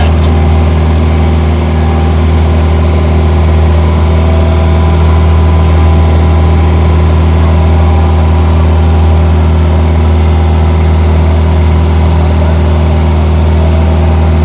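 Large passenger boat's engine running with a steady, loud, low drone.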